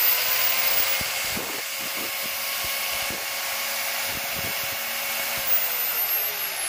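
Xtra Power XPT 417 125 mm marble cutter running unloaded at full speed with a high whine. About five and a half seconds in it is switched off and winds down, its pitch falling.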